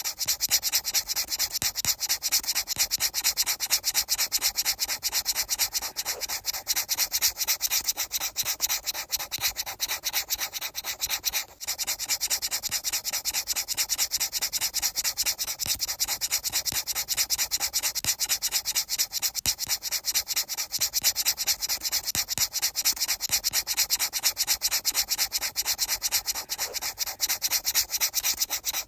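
Rapid, evenly repeated rubbing strokes with a strong hissy edge, broken by a brief drop-out about eleven seconds in.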